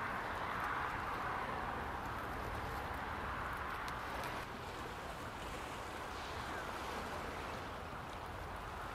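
Steady wind and surf on the beach, a continuous even rush with no distinct events.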